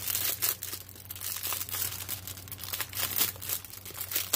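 Clear plastic bag crinkling and rustling in irregular crackles as hands handle and open it.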